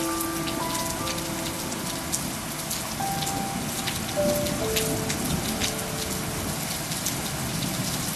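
Steady rain with many sharp drop clicks. Soft sustained music notes are held underneath and change every second or two.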